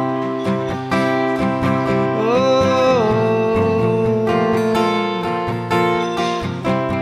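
Live acoustic guitar strummed in a steady rhythm. A single held sung note slides up about two seconds in and holds for about three seconds.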